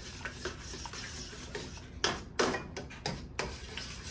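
Wooden-handled wire whisk stirring melted shortening and hot water in a stainless steel bowl, with light scraping and ticking. In the second half the whisk strikes the bowl in about four sharp clinks.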